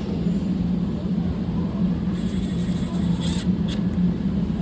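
A steady low mechanical hum runs throughout, with two brief sharp clicks a little past three seconds in.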